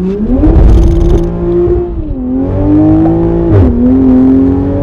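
2020 Toyota Supra engine running loud with its exhaust removed, accelerating hard. The pitch climbs and then drops at two fast upshifts, about two seconds in and again about a second and a half later.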